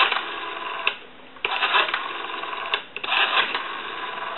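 Stromberg-Carlson 500 telephone's rotary dial being wound round and spinning back, about three digits in a row. Each return is a steady whirr of about a second and a half that starts with a click. The freshly serviced dial runs smoothly, as it should.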